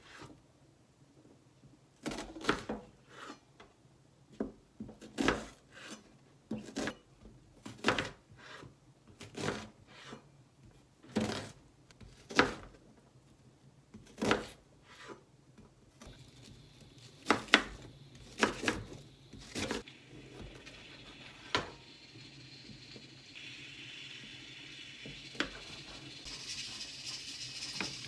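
Kitchen prep sounds: irregular knocks and clicks of dishes and utensils being handled, then a pan's sizzle rising toward the end as frying gets under way.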